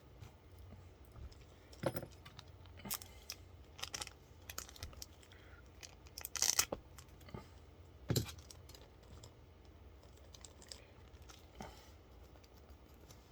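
Small metal parts and plastic packaging being handled: scattered light clicks and short rustles, with a louder clatter of clicks about six and a half seconds in and a sharp click just after eight seconds.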